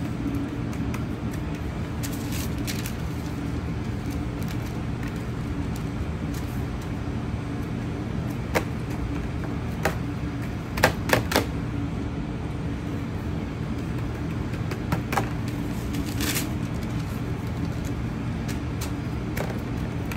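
Parchment paper being pressed and smoothed by hand onto a dampened aluminium sheet pan. It gives a few short crinkles and taps, the loudest a cluster about eleven seconds in, over a steady machine hum.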